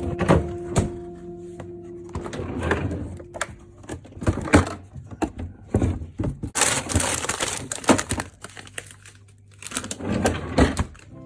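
Irregular knocks, clicks and rustling, like objects being handled and set down, with soft background music in the first few seconds.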